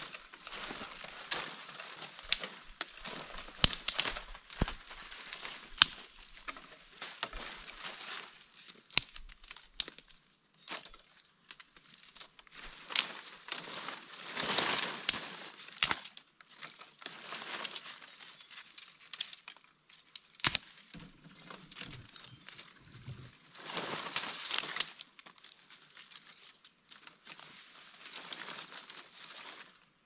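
Irregular rustling and crackling of dry material, broken by sharp snaps, with two louder stretches of rustling, one about halfway through and one later on.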